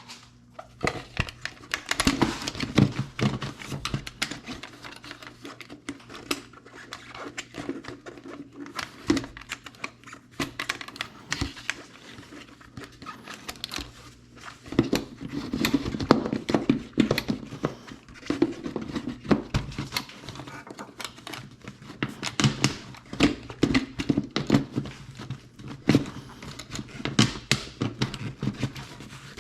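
A new air filter being worked and pushed into its tight plastic filter housing on a compact tractor: irregular clicks, knocks and rubbing of plastic and rubber, with a faint steady low hum underneath.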